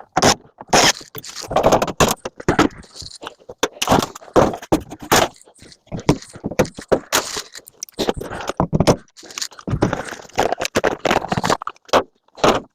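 Scrap metal being handled: irregular scraping and clinking of small metal pieces, with many short knocks at uneven intervals.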